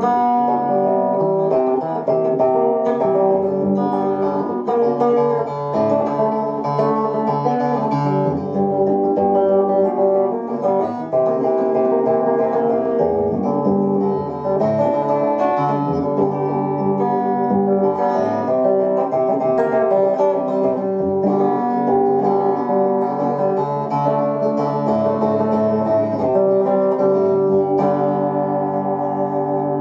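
Fender two-knob Stratocaster electric guitar played with a run of picked notes and chords, a last chord left ringing and slowly fading near the end. The selector is on the bridge pickup with the tone control turned fully anticlockwise for a more bassy sound.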